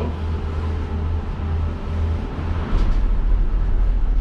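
Steady low rumble inside a Disney Skyliner gondola cabin riding the cable in high winds, growing louder a little under three seconds in.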